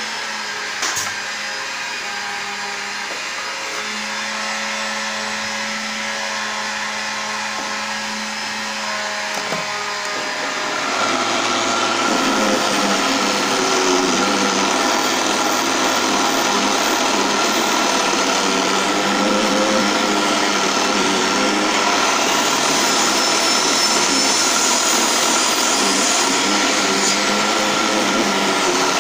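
Small benchtop wood lathe running steadily with a motor hum. About 11 seconds in, a rasp is pressed against the spinning wooden blank, and a louder scraping rasp joins the hum and carries on.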